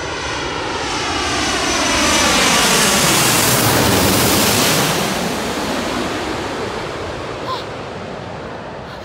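Boeing 787 airliner on final approach passing low overhead. The jet engine noise swells to a peak about three seconds in, with a swirling, sweeping tone as it goes over, then fades as the plane moves away toward the runway.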